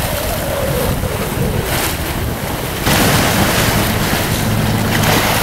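Wind buffeting the microphone over the rush of sea water along a sailing yacht's hull, getting louder about three seconds in.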